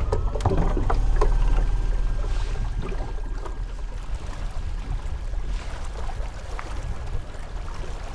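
Small boat under way on an Epropulsion Spirit 1.0 electric outboard: a steady low rumble of wind and water, with a thin motor whine that rises at the start and then holds steady. Scattered light clicks and knocks sound over it.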